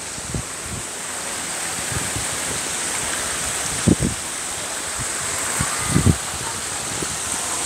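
Steady rushing splash of an ornamental water fountain, growing slightly louder, with a few brief low thumps.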